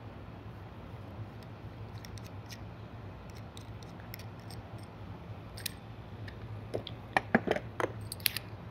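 Light clicks and ticks of small fishing tackle being handled and rigged on a rod's line, coming more often near the end, over a steady low hum.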